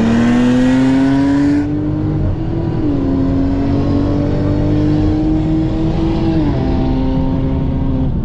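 Car engine pulling hard at full throttle, its note climbing steadily and dropping at two upshifts, about three seconds and six and a half seconds in.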